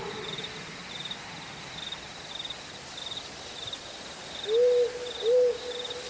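An owl hoots twice near the end, two short rising-and-falling hoots that are the loudest sounds, over a steady background of crickets chirping in regular trills about twice a second. The tail of a wolf howl fades out at the very start.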